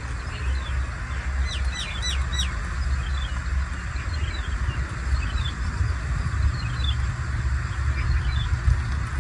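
Birds calling in the tree canopy: scattered short chirps, with a quick run of four falling notes about two seconds in, over a steady low rumble.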